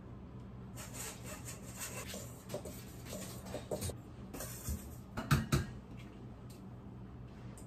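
Baking prep at the counter: ingredients poured and shaken from measuring cups into a stainless steel mixing bowl, with rustling and scraping, and a few sharp clinks about five seconds in, the loudest sounds. A steady low hum runs underneath.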